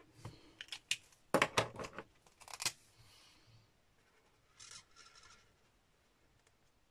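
Alcohol markers being handled: a cluster of sharp clicks and knocks in the first three seconds as the markers are swapped and uncapped. About five seconds in comes a brief scratchy rub of a marker tip colouring over card stock.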